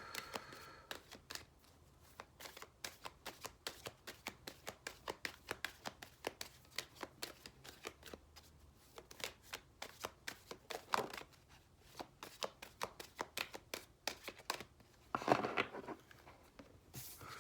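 A deck of oracle cards being shuffled by hand: a quick patter of cards slapping together, about three or four a second, with a couple of longer rustling swishes after the middle and near the end.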